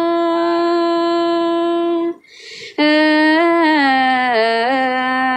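A woman singing a Thái (Tai) folk song in long held notes. About two seconds in she pauses briefly for breath, then continues with a wavering, ornamented phrase.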